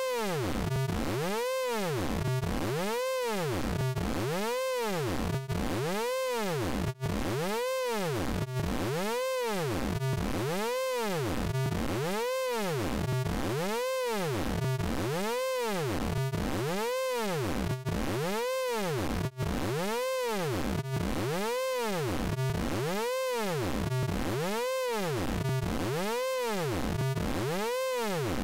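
Synthesized vocoder tone from the Orange Vocoder plugin: a buzzy stack of harmonics swooping up and down in pitch about once a second, looping over and over, with a few very brief dropouts.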